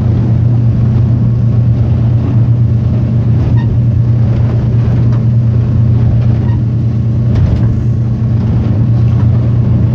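Motorboat engine running steadily at speed, a loud, even low drone heard from inside the boat's enclosed cabin.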